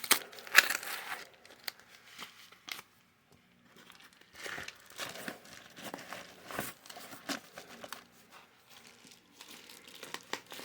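A package being opened by hand: packaging crinkling and tearing in irregular rustles and small clicks, loudest in the first second or so.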